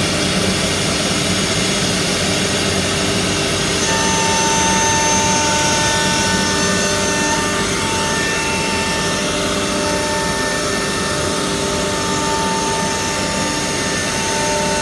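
Four-spindle CNC wood router cutting grooves into a laminated wood panel: a steady rushing machine noise, with a steady high spindle whine coming in about four seconds in.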